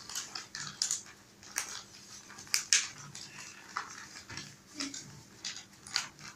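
Sheets of stiff coloured cover paper being folded and creased by hand into paper planes: irregular crinkles and rustles, several at once from different hands.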